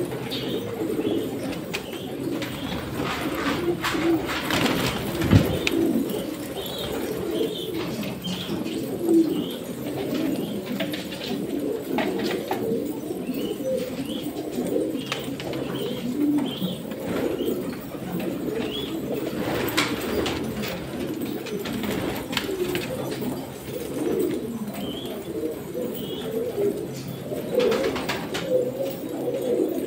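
A crowd of domestic pigeons cooing continuously, many low coos overlapping, with a few brief clicks here and there.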